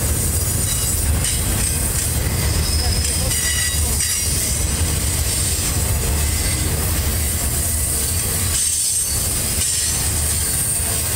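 Freight cars of a loaded rail train rolling slowly through a sharp curve, with a steady low rumble and thin, high wheel squeal against the rails.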